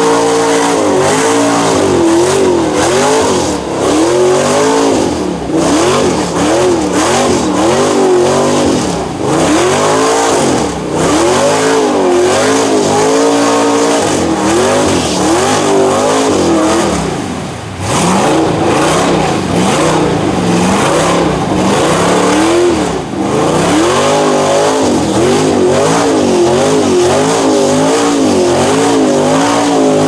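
Chevrolet mud truck's LS V8 running flat out through a mud hole, its pitch sweeping up and down again and again as the spinning tyres bite and slip in the mud. A brief dip in loudness comes a little past halfway.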